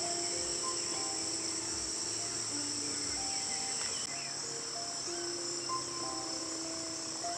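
Steady high-pitched chorus of insects, with a soft instrumental melody of held notes beneath it.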